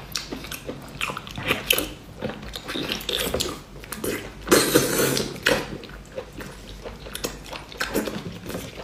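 Close-up chewing of braised baby octopus: wet mouth smacks and squelches, with a louder wet burst about four and a half seconds in.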